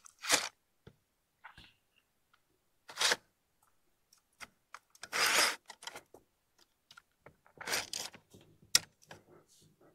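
Scattered clicks, taps and short rustles of hands handling a crossbow and its mounted gear on a shooting rest, with one sharp click near the end.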